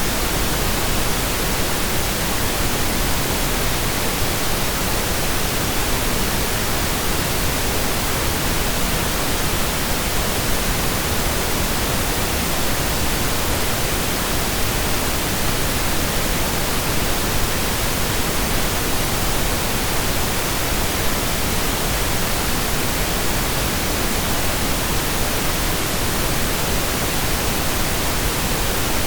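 Steady synthesized pink noise, an even hiss like rain or a distant waterfall, unchanging throughout.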